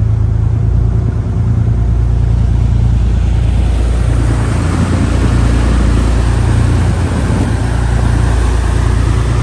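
Sportfishing boat underway: the engines give a steady low drone under the rush of water from the wake and wind over the deck. The rushing grows louder about four seconds in.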